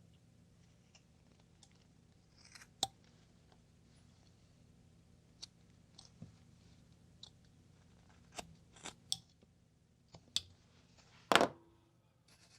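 Carving knife slicing small cuts into a basswood block: about a dozen short, crisp strokes at irregular intervals, the loudest one near the end.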